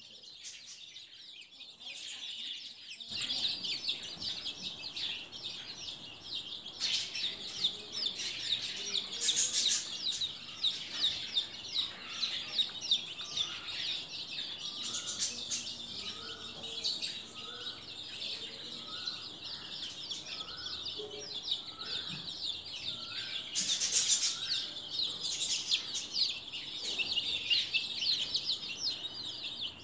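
A flock of two-week-old chicks peeping, many high, rapid cheeps overlapping. The peeping grows busier about three seconds in. A fainter, lower call repeats roughly once a second through the middle.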